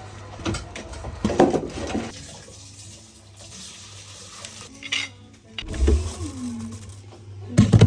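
Dishes and cutlery clattering during kitchen work: a handful of separate clinks and knocks, the loudest near the end, over a faint steady hum.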